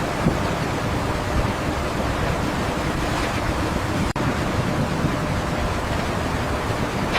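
Steady rushing noise with no clear rhythm or tone, with a momentary dropout about four seconds in.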